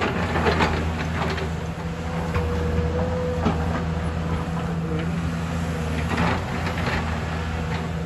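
Hyundai crawler excavator's diesel engine running steadily under load, with a thin whine that comes and goes and scattered knocks and clanks as the bucket and tracks work soil and stones.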